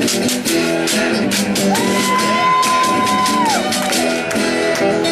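Live acoustic guitar strummed in a steady rhythm. From about one and a half seconds in, a long high whoop is held for nearly two seconds, swooping up at the start and falling away at the end.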